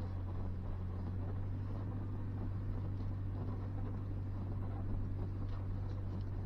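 A 2023 Ford Ranger Tremor pickup crawling along a rocky dirt trail: a steady low engine drone, with the gravelly crackle of tyres rolling over loose rocks and dirt.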